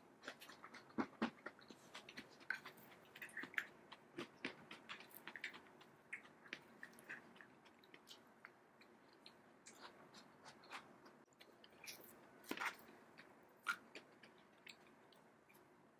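Wooden spoon tapping and scraping in a coconut-shell bowl of overnight oatmeal with fruit and nuts, as it is stirred and scooped. Faint, irregular clicks and small knocks, with a louder cluster about twelve seconds in.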